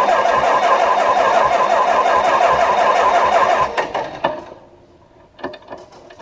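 Freshly rebuilt White 160AX 386 cubic-inch six-cylinder gasoline engine cranking over on its starter for its first start, with a steady rhythmic chug, stopping suddenly about three and a half seconds in. A few light clicks and knocks follow.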